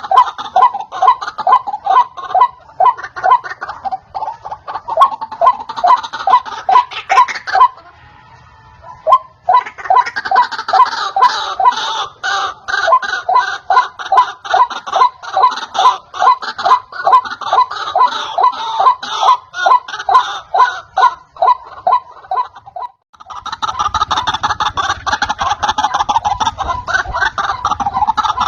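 White-breasted waterhen (ruak-ruak) lure call: a fast, harsh run of repeated notes, about three a second. It stops for about a second and a half near eight seconds, then resumes.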